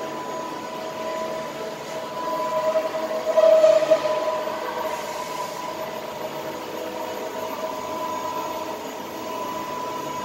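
Powered-up CNC turning and milling centre humming steadily, with two steady whining tones over a machine hum that swells briefly about three seconds in.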